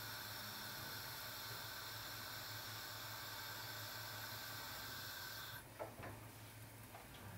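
Faint, steady hiss from a gas stove burner under the covered pot. It cuts off abruptly about five and a half seconds in as the flame is shut off, followed by a few light clicks.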